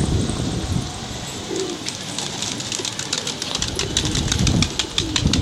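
A flock of Indian high-flyer pigeons cooing, with wings flapping. From about two seconds in, a quick patter of sharp clicks runs on.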